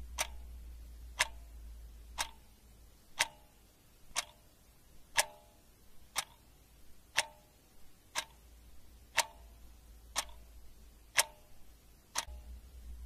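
Clock ticking steadily, one sharp tick about every second, over a faint low hum.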